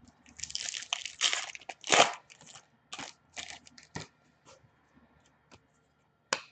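A trading-card pack's wrapper crinkling as it is torn open and handled, loudest in the first two seconds, followed by a few light clicks and taps of cards being handled.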